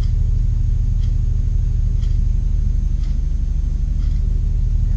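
Steady low electrical hum in the broadcast audio, with a faint tick about once a second.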